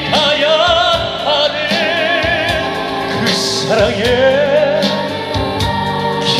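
Male vocalist singing a slow Korean trot ballad live, holding long notes with a wide vibrato, over an amplified backing band.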